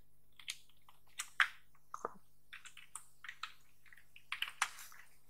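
Typing on a computer keyboard: irregular, light keystrokes, a few a second.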